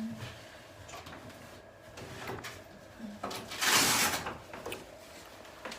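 Flexion-distraction chiropractic table moving under a patient lying face down: faint creaks and knocks, with a short rushing hiss about three and a half seconds in.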